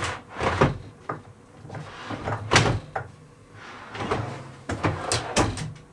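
A wooden OSB drawer being pushed into its cabinet and worked in and out on side-mounted metal drawer runners, giving a string of knocks and clacks as it is fitted.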